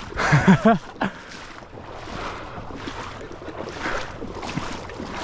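A man's short wordless exclamation near the start, then steps sloshing through marsh water about twice a second, with wind on the microphone.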